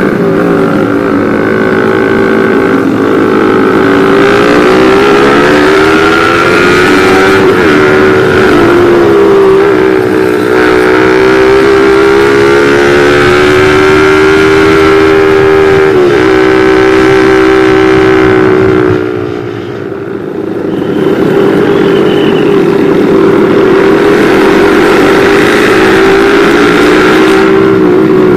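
Motorcycle engine running at steady riding revs, heard from the rider's own bike, its pitch swaying gently up and down. About two-thirds of the way through the engine sound drops away for a second or two, then picks back up.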